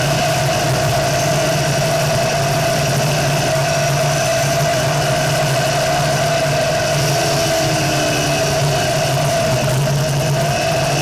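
Home-built off-road buggy's engine running steadily as it drives along a gravel road, over a constant noise of wind and road.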